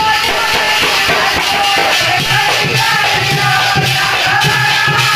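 Male folk singing of a dehati thali Ramayan, one voice holding a bending melodic line, accompanied by a hand-held wooden clapper fitted with small metal cymbals rattling steadily in rhythm, over a low pulsing accompaniment.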